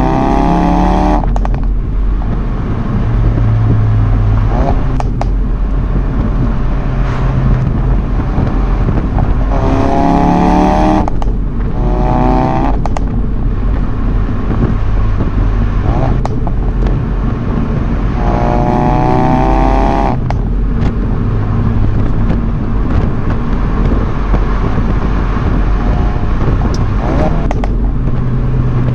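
Ford Focus RS Mk3's turbocharged 2.3-litre four-cylinder pulling hard three times. Each time the engine note climbs steeply and breaks off at the gear change, and a steady low engine and road drone runs between the pulls.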